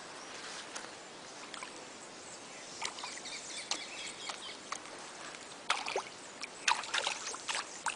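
Steady outdoor background hiss with scattered short clicks and knocks, more frequent from about three seconds in.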